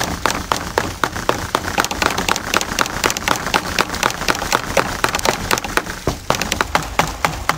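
Primitive stone hand axe chopping into a small maple trunk: rapid, steady strikes, about five a second, cutting into the wood.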